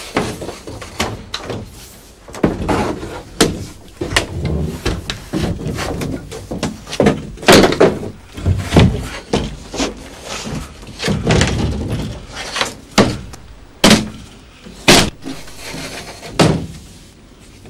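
Large wooden painting panels being shifted and propped against one another and the wall, giving a string of irregular knocks, thuds and bangs.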